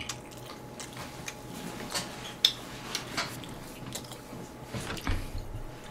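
Faint, scattered small clicks and light taps at irregular intervals, with a few soft low thuds near the end.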